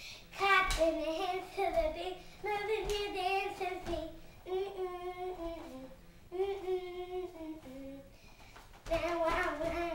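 A young girl singing her own hip-hop tune unaccompanied, in short phrases with pauses between, with a few thumps of feet on the floor as she dances.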